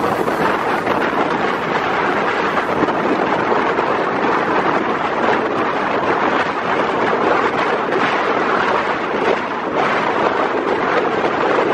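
Steady rush of wind and wheel-on-rail noise heard from the open window of a moving passenger coach, with wind buffeting the microphone.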